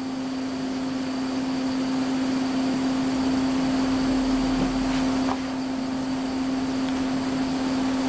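Steady machine-like hum: one constant low tone over an even hiss, with a faint click about five seconds in.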